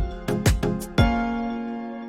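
Background music with a steady beat that stops about a second in on one held chord, left to fade out.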